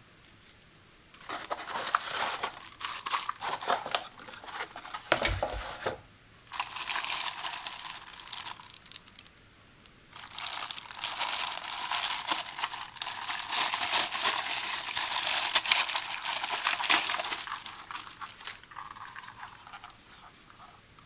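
Packaging crinkling and rustling as it is handled and pulled apart, in two long stretches of several seconds each, with a dull thump about five seconds in.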